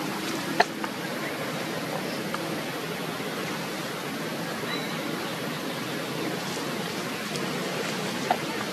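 Steady hiss of outdoor background noise, with two sharp clicks, one about half a second in and one near the end.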